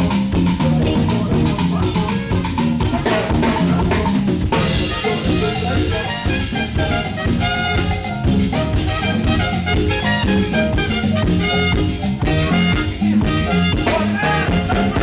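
Live band playing an instrumental Latin dance groove on drum kit and bass, with more melodic instruments joining about four and a half seconds in.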